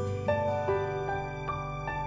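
Soft background music: slow held keyboard notes over a steady low pad.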